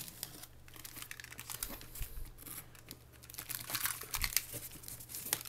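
Box cutter scraping and slicing through plastic packing tape on a cardboard box, with irregular scratchy crackles and tearing of the tape that get a little louder in the last couple of seconds.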